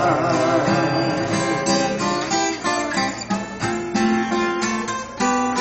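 Acoustic guitar played solo, strummed and picked, an instrumental break between sung verses.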